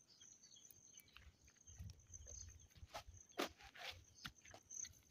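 Faint footsteps in flip-flops on a dirt footpath, a few soft steps in the second half over a low rumble.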